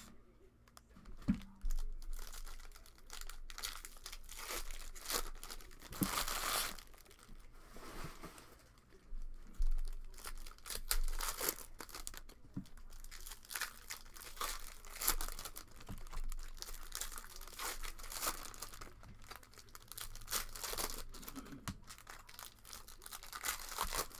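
Foil wrappers of Panini Prizm soccer card packs crinkling and tearing as they are ripped open by hand, with irregular rustling bursts throughout. A stack of cards is handled in between, with a few dull knocks.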